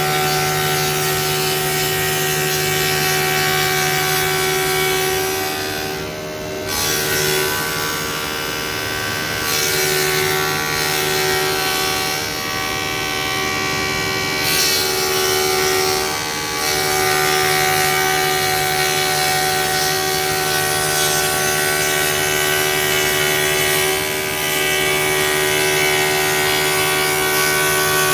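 Spindle moulder (wood shaper) running steadily, its cutter machining the edge of a wooden cabinet-door panel that is fed by hand along the fence. The level dips briefly a few times.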